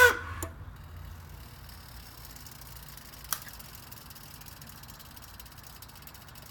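Ducati Monster 796's air-cooled L-twin engine being switched off. It stops abruptly with a short falling whine, the odd shut-down noise the owner cannot explain, and a single sharp click comes about three seconds later.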